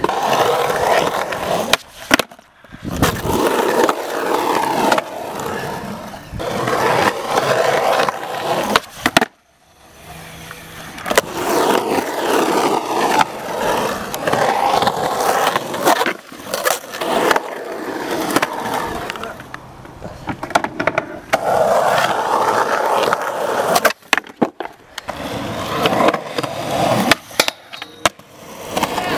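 Skateboard wheels rolling over rough concrete, broken by sharp clacks of the board's pops and landings. The sound cuts off abruptly a few times.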